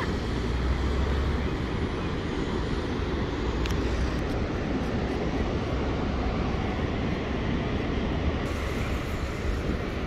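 Steady roar of Niagara Falls and the churning whitewater below it: a dense rushing noise with a heavy low rumble.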